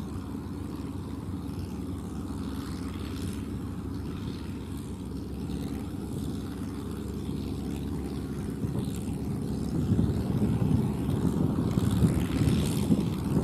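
A Kubota ZL3001 tractor's four-cylinder diesel engine running steadily under load, getting louder over the last few seconds.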